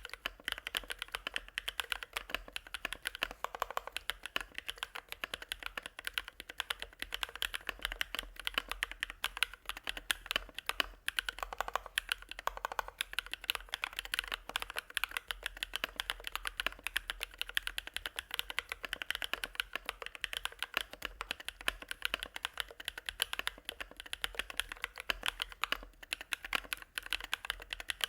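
Continuous fast typing on a mechanical keyboard with hand-lubed Bsun Sunset Yellow linear switches: a dense, unbroken run of keystrokes with a middle-low pitched clack.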